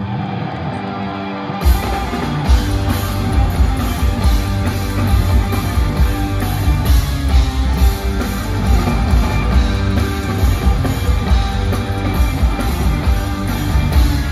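Rock band playing live through a PA, amplified and loud: a held chord rings for the first second and a half, then the drum kit and full band come in with a steady driving beat.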